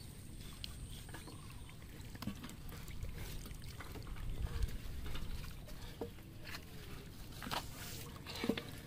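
Water splashing and dripping as small fish are scooped with a plastic mug and tipped into a net-covered pot, with light taps throughout and a few sharper splashes or knocks near the end, over a steady low rumble.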